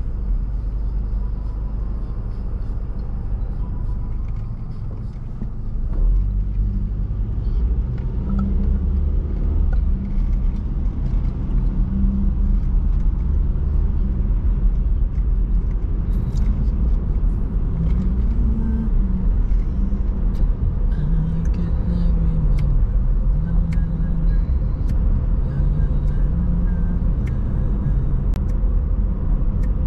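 Car driving, heard from inside the cabin: a steady low rumble of road and engine noise that grows louder about six seconds in, with the engine pitch rising and falling a little and a few light clicks later on.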